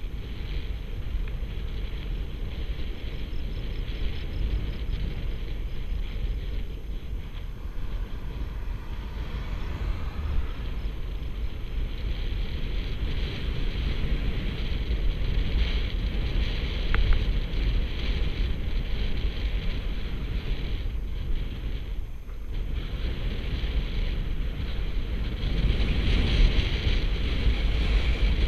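Wind buffeting the microphone of a camera on a moving bicycle, with a steady low rumble of tyres on asphalt.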